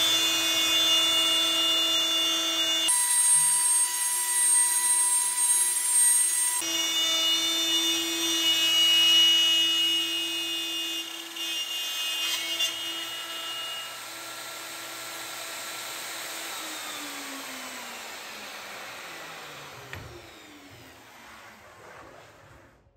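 Festool plunge router running at speed with a steady whine as it cuts the edge of a solid cherry tabletop. In the last several seconds it is switched off and the whine falls in pitch as the motor spins down.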